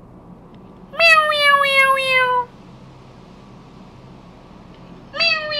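A cat meowing: one long meow falling in pitch about a second in, then a short meow near the end.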